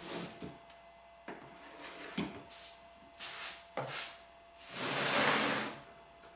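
A few light knocks and clatters of metal parts handled on a wooden workbench, then a loud scrape lasting about a second as the heavy cast-iron frame of a Famco No. 3 arbor press is slid and shifted on the wooden bench top.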